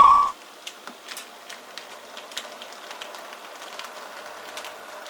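A steam locomotive whistle cuts off just after the start. Then an OO gauge model train runs quietly, with a faint steady hum and light irregular clicks of its wheels on the track.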